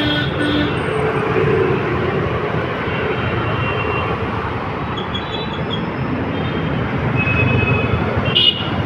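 City road traffic: motorcycles, scooters and cars passing in a steady rumble of engines and tyres, with a few short horn beeps near the middle and end.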